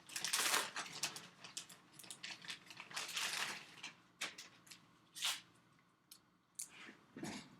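Plastic packaging crinkling and tearing in irregular bursts as a replacement laptop display is unpacked, followed by a few short sharp clicks and knocks in the second half.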